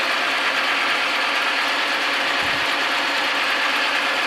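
1917 Hendey lathe running steadily at its top speed in high gear, its gearing and belt drive turned by an electric motor on a variable-frequency drive set all the way up.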